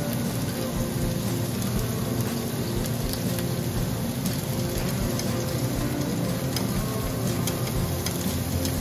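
Sliced onions sizzling in a hot frying pan: a steady hiss with frequent small crackling pops.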